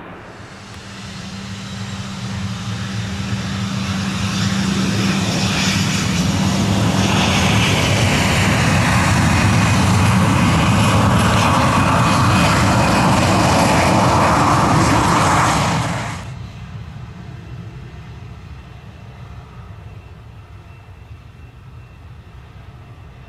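Boeing 737's twin jet engines at high power as the airliner rolls down the runway past, swelling over several seconds into a loud roar with a falling whine. About 16 seconds in the roar drops suddenly to a much quieter, steady engine rumble.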